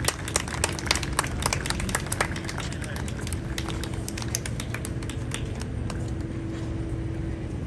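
Scattered applause from a small crowd, separate hand claps that thin out about halfway through, over a steady low hum.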